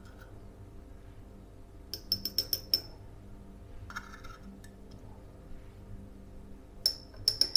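Metal teaspoon tapping and clinking against the rim of a copper cezve and a small coffee cup while the foam of Turkish coffee is spooned into the cup. The taps come in two quick runs of light, ringing ticks, one about two seconds in and another near the end.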